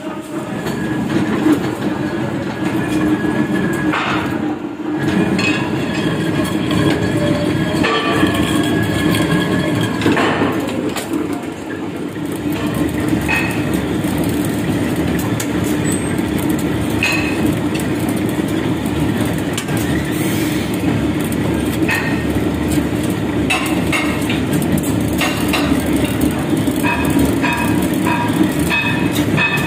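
Metal lathe running as it machines a mild-steel truck rim plate: a steady machine rumble with short, high squeals from the cutting tool on the steel, coming more often in the second half.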